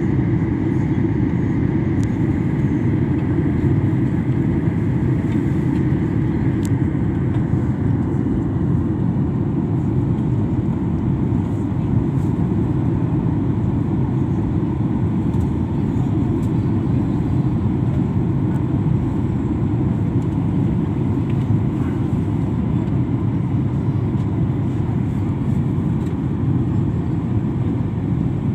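Steady low rumble inside an airliner's passenger cabin in flight: engine and airflow noise, with a faint steady whine.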